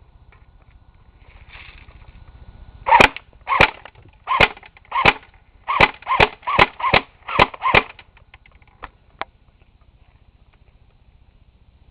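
Battery-powered airsoft MP5 replica firing about ten single shots over some five seconds, each a sharp snap, about two a second, followed by two faint clicks.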